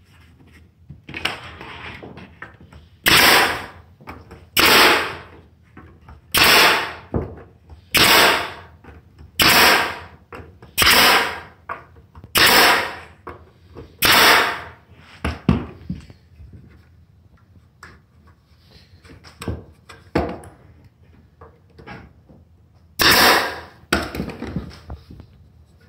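Pneumatic nail gun firing fasteners through a thin wooden panel into a wooden box: about eight sharp shots in a row, roughly one every second and a half, each dying away within half a second. After a few lighter knocks comes one more loud shot near the end.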